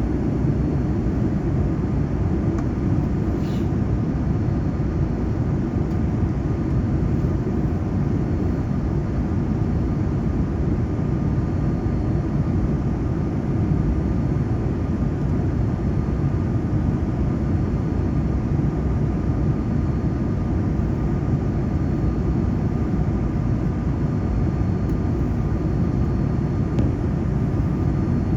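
Steady cabin noise of a Boeing 787 airliner in flight: an even, low rushing drone of airflow and engines, with a faint thin whine above it.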